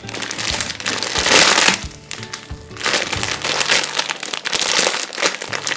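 Slow-rising peach-shaped foam squishy toy squeezed close to the microphone, giving crackly crushing sounds in two spells, the first about a second in and the second from about three seconds in. Background music plays underneath.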